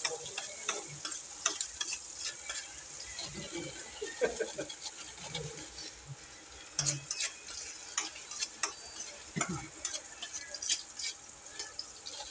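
Garlic and other chopped ingredients sizzling in hot oil in a stainless steel pot, stirred with a utensil that scrapes and clicks against the pot again and again.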